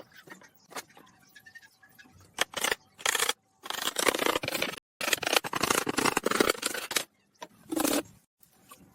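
Scraping and rasping of work on wood, in several bursts of a second or two. Each burst is cut off suddenly by silence, as between edited clips.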